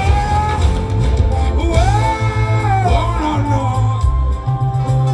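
Live band music with a heavy bass beat and a voice singing long held, gliding notes.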